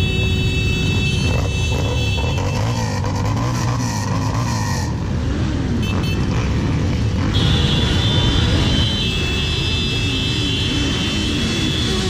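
Many motorcycle engines idling and revving up and down around a slow-moving column of motorcycles, over the steady low drone of one engine running close by.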